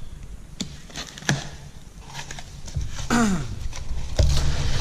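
Packaging and parts being handled during an unboxing: a couple of light knocks, a short falling squeak about three seconds in, then a heavy thump with a low rumble near the end as something weighty is set down or shifted.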